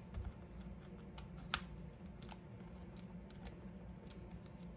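Faint clicks and taps of paper handling as Stampin' Dimensionals foam adhesive dots are pressed onto a small die-cut cardstock flower, with one sharper click about a second and a half in.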